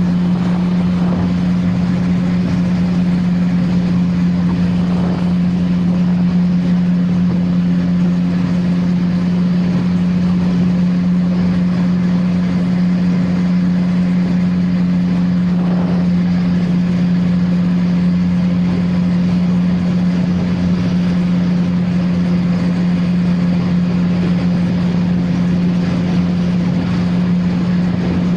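CFMoto 675NK's inline-triple engine with its stock exhaust, running at a steady, unchanging speed while the bike cruises.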